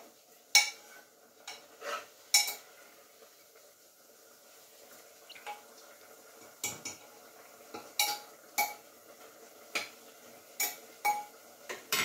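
A metal spoon clinking and scraping against a cooking pot while food is stirred: sharp, irregular clinks that are sparse at first and come more often in the second half.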